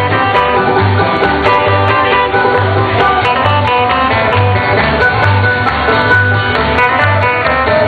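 Background music: a plucked-string, guitar-led country or bluegrass tune with a steady bass beat about twice a second.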